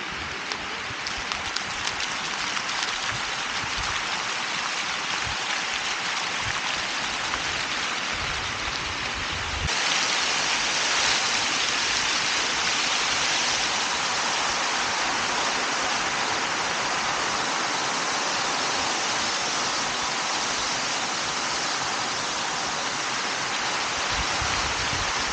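Water from a multimedia park fountain splashing and falling into its pool, a steady rushing hiss that gets louder about ten seconds in. Low wind rumble on the microphone comes and goes, most near the end.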